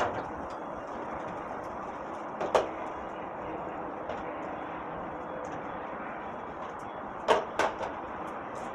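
Short knocks and clatters of containers and refrigerator parts being handled and set down: one at the start, another a couple of seconds in, and a quick run of three near the end, over a steady background hiss.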